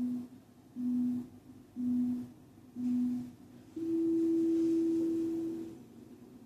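Workout interval timer beeping a countdown: four short beeps about a second apart, then one long, higher-pitched beep of about two seconds marking the change to the next interval.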